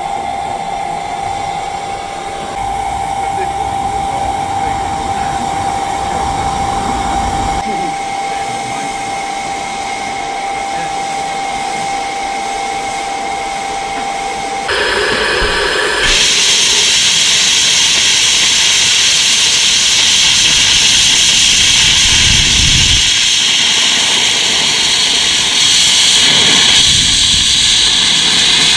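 Small George England narrow-gauge steam locomotives hissing steam: first a steady hiss with one held tone running through it. Then, from about halfway, a much louder, brighter rush of steam as a locomotive blasts a jet of steam out low beside the track.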